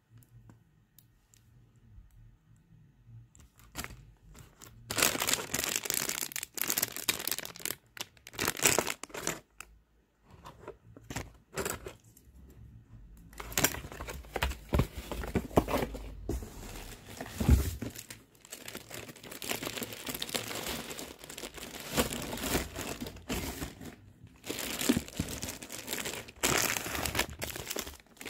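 Plastic packaging crinkling and cardboard box pieces rustling and scraping as a boxed printer and its bagged power adapter are handled. It comes in irregular bursts after a quiet first few seconds, with a dull thump about two-thirds of the way through.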